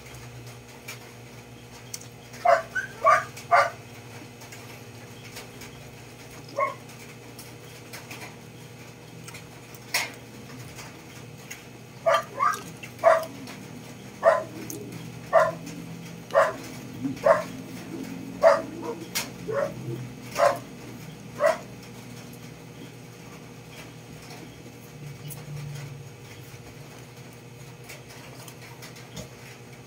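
Short, high-pitched yelps from an animal, about fifteen of them at irregular spacing: a small cluster a few seconds in and a denser run in the middle, then none. A steady low hum lies underneath.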